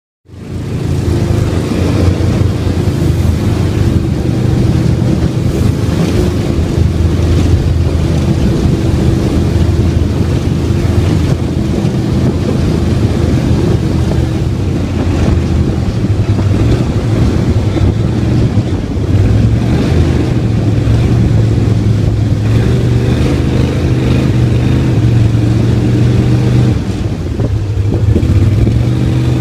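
Gatortail surface-drive mud motor running steadily at speed, heard from on board the jon boat. The sound cuts in suddenly a moment after the start.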